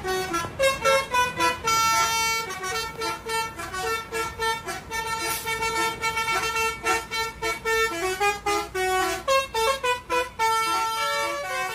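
Lorry telolet horns, multi-note electric air horns, playing a fast string of tooted notes that change pitch. Now and then a note is held for about a second.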